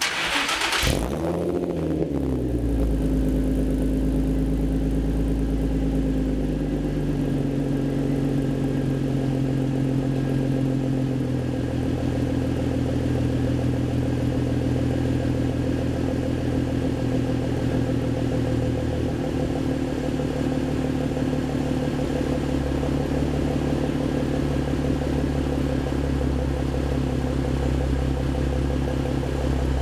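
2005 Infiniti G35's 3.5-litre V6, breathing through a Motordyne Shockwave exhaust and ART pipes, starting up. A loud burst as it catches, the revs flaring and dropping over about two seconds, then a steady idle that settles a little lower a couple of times in the first dozen seconds.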